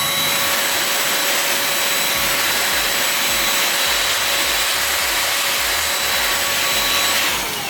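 Chemical Guys Pro Blow handheld air blower running at full power, a steady motor whine over a loud rush of air as it blows dust and cat hair out of a mechanical keyboard. Near the end it is switched off and spins down, its whine falling in pitch.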